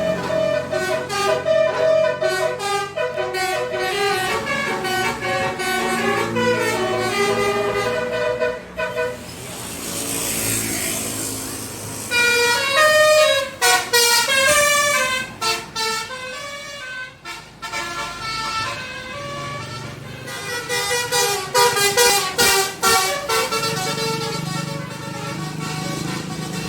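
Basuri multi-tone 'telolet' bus air horns playing quick melodic tunes, note after note, in several runs. A rush of hiss comes about ten seconds in, and a low engine rumble rises near the end.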